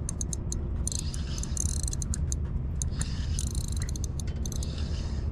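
Daiwa Exist 5000D-C spinning reel being cranked to retrieve a jig: runs of fast, light clicks, several a second, coming in spurts, over a low steady rumble.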